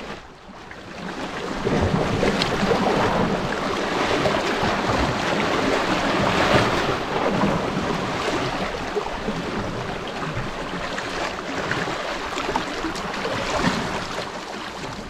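A steady rush of wind and waves at the water's edge, with wind buffeting the microphone. It swells about a second and a half in, then rises and falls slowly.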